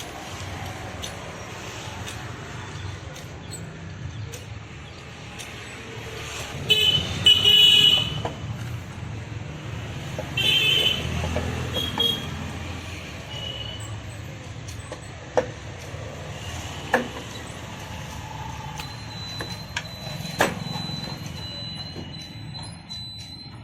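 Road traffic running steadily, with vehicle horns honking several times, the loudest blasts about seven and eleven seconds in. A few sharp knocks in the second half.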